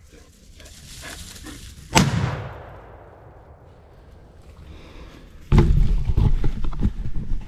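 A single rifle shot about two seconds in, a sharp crack with a long echo fading through the woods: the shot that kills a wild boar hog. From about five and a half seconds in comes loud rustling and handling noise.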